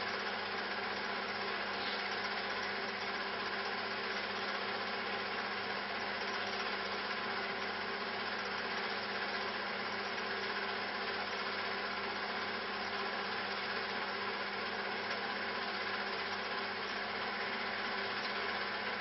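Steady mechanical hum and whirr of a film projector running, with an even hiss, unchanging throughout.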